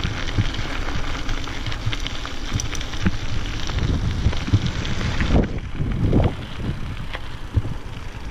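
Mountain bike tyres crunching and crackling over a gravel path while riding, with wind on the microphone.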